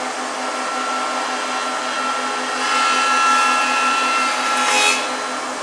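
Thickness planer running, with a rough-sawn walnut board feeding through its cutterhead. From about two and a half seconds in, the cut gets louder and harsher, peaking just before the end.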